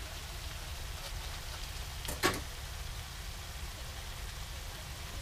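Butter, chopped vegetables and crawfish tails sizzling quietly in a frying pan, a steady fine hiss over a low hum. A single sharp knock about two seconds in.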